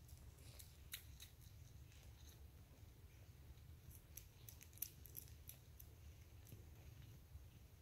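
Near silence over a low hum, with faint scattered small clicks and smacks from newborn kittens suckling. There are a few about a second in and a cluster around four to five and a half seconds in.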